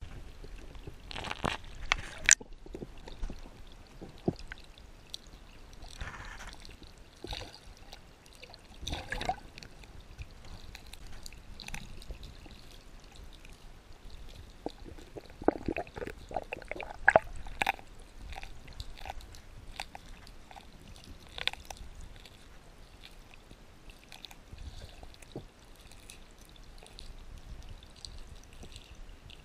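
Pond water heard through an underwater camera: a steady low wash with irregular drips, gurgles and sharp clicks, bunched most thickly around the middle.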